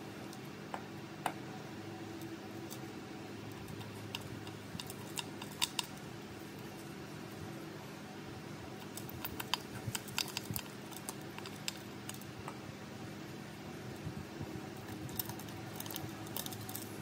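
Small hand tools clicking and tapping on the parts of a smartphone being taken apart or repaired, in scattered light clicks that come in clusters, over a steady fan hum.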